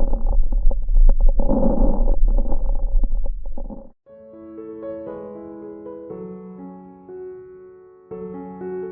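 Recorded lung sounds heard through a stethoscope: a low rumble with swelling breath noise and scattered short clicks, cutting off suddenly at about four seconds. Gentle piano music follows.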